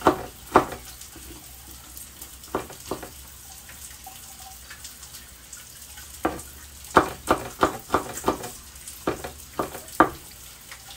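A kitchen utensil knocking against cookware about a dozen times in irregular clusters, most of them between six and ten seconds in, over the faint steady sizzle of food frying.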